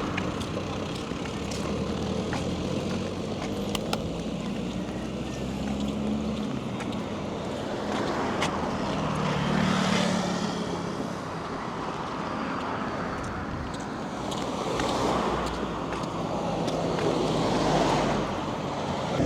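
Road traffic: vehicle engines running with a steady rush of tyre and street noise. Passing vehicles swell louder about halfway through and again twice near the end.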